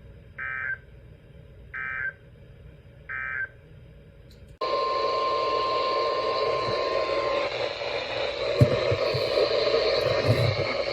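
Emergency Alert System end-of-message data bursts: three short buzzy digital tone bursts about a second and a half apart, marking the end of the warning. A few seconds in, it cuts suddenly to hissy, static-laden radio reception carrying a steady alert tone for about three seconds.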